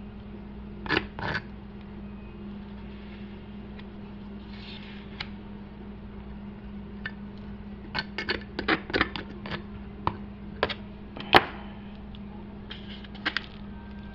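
Kitchen work with a knife and meat at a cutting board: scattered sharp clicks and knocks, a quick pair about a second in and a dense run of them later, the loudest near the end, over a steady low hum.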